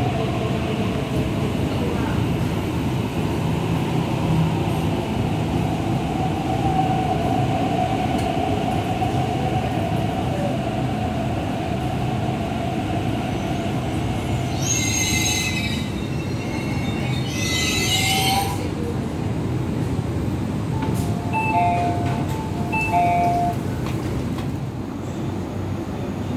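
MTR East Rail Line electric train running into the platform and slowing to a stop, with a steady rumble and a drawn-out motor whine that fades out about halfway through. Two short high-pitched bursts follow, then a quick series of short beeps.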